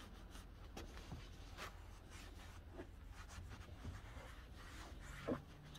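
Foam-tipped applicator rubbing and dabbing trim dye onto a textured plastic van bumper: faint short scrubbing strokes, roughly one every half second, with a slightly louder one near the end.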